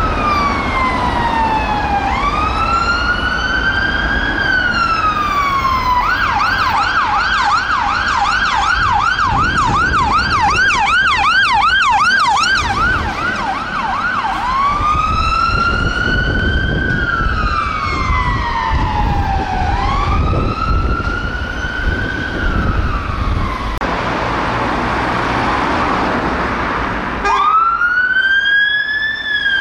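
Fire engine siren on a MAN TGM rescue pump sounding a slow rising-and-falling wail. About six seconds in it switches to a fast yelp of about three cycles a second, and back to the wail at around fourteen seconds. After a few seconds of traffic noise, a Vauxhall Astra police car's siren starts a new wail near the end.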